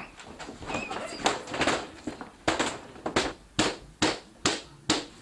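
Footsteps, uneven at first, then steady at about two steps a second.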